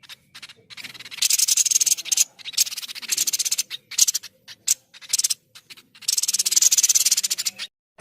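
White-breasted babbler (tepus dada putih) giving harsh, rapid rattling trills in repeated bursts, a few short ones in the middle and a longer one near the end.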